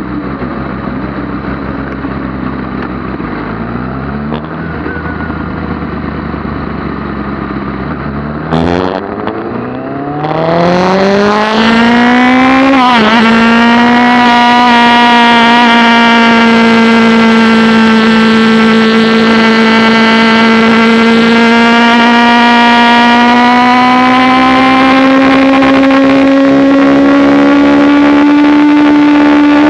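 Sport motorcycle engine heard onboard on a racetrack. It runs lower with brief blips for the first few seconds, with a sharp click about nine seconds in. It then revs up hard, changes gear near thirteen seconds, and holds a steady high-revving note that creeps slowly higher.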